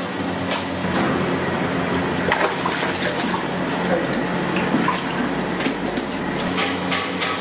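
Hands splashing and sloshing water in a large aluminium pot while washing, with a few light clicks.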